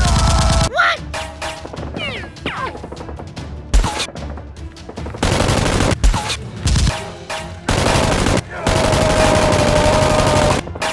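Bursts of rapid automatic gunfire: a short volley at the start, several shorter volleys in the middle, and a long volley of about two seconds near the end.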